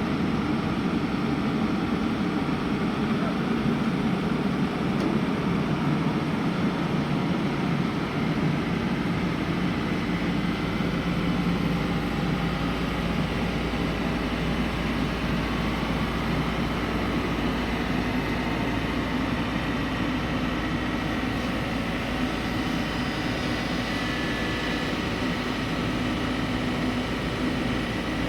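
Kobelco SK220 excavator's diesel engine running steadily while it works loading a trailer; a deeper steady hum joins about ten seconds in.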